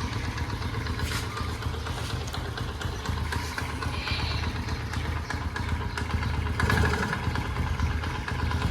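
Honda CD70 single-cylinder four-stroke motorcycle engine idling steadily while still cold from a cold start, with the uneven 'bal bal bal' beat of a cold engine. It swells briefly about seven seconds in.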